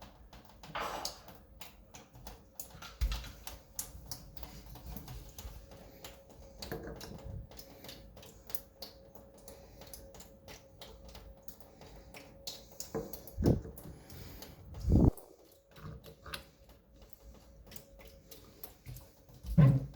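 Small irregular clicks and taps of parts being handled and fitted back onto a Moen shower valve, with a few louder knocks.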